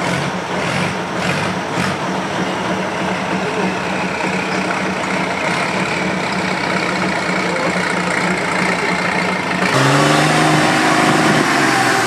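Off-road trial truck's diesel engine running steadily, with a few short knocks in the first two seconds. Near the end it changes abruptly to a louder engine note that falls in pitch and then rises again as it is revved.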